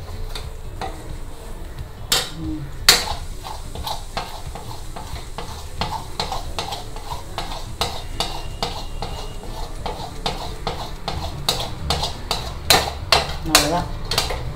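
Metal spatula scraping and knocking against a bronze kadai while stirring a thick cake batter that is nearly at its setting stage. Sharper clanks come about two and three seconds in, and a quick run of them near the end.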